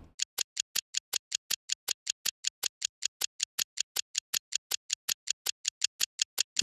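A steady, evenly spaced ticking sound effect, about five sharp ticks a second, like a clock ticking. It runs alongside an animated dial counting out a travel time.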